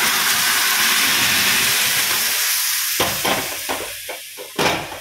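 Cooked urad dal poured into hot ghee with fried garlic and red chilli, a loud tadka sizzle and hiss that fades after about two and a half seconds. It is followed by a few short knocks and scrapes in the second half, the last one the loudest.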